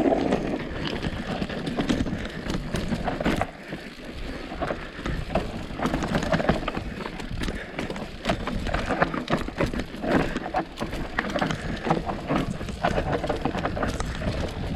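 Mountain bike descending a rough dirt trail: knobby tyres rolling over dirt and rocks, with frequent sharp knocks and rattles from the bike over bumps and a low rumble underneath.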